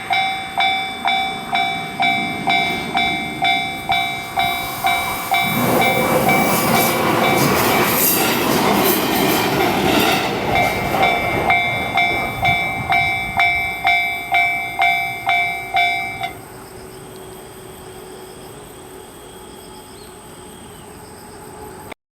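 Railway level-crossing alarm ringing its electronic bell about twice a second while a train passes over the crossing, the train's rumble and wheel clatter loudest from about six to twelve seconds in. The bell stops about sixteen seconds in, leaving a low steady background.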